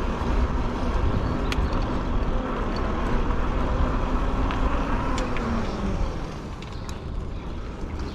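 Wind and road noise while riding a fat-tire e-bike: a steady low rumble with a hum that fades away about six seconds in, and a few faint clicks.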